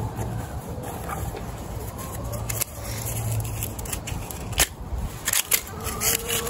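Leather drawstring pouch being opened and its kit rummaged through by hand: rustling handling noise, with a few sharp clicks and knocks about four and a half to five and a half seconds in.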